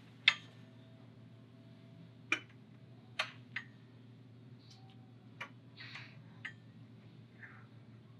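Scattered sharp clicks and knocks from an honor guard posting the colors: flagstaffs set into metal floor stands and ceremonial rifles handled. The loudest click comes just after the start and a few lighter ones follow, over a steady low room hum.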